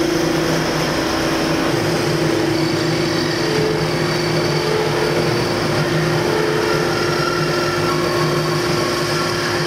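Steady hum and whir of running woodshop machinery, with a constant low drone and no cutting chatter.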